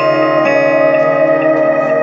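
Slow instrumental music: sustained, echoing guitar notes that change every second or so over a steady held tone.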